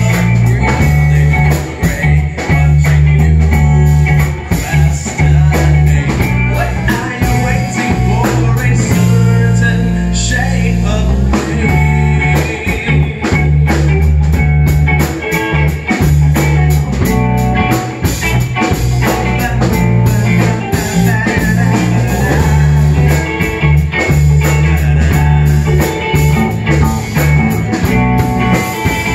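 A live band playing: electric bass, electric guitar and drum kit, with a man singing into a microphone.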